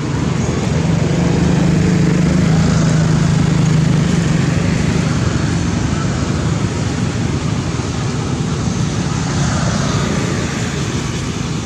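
An engine hums steadily in the background, strongest for the first few seconds and fading after about six, over a constant outdoor noise.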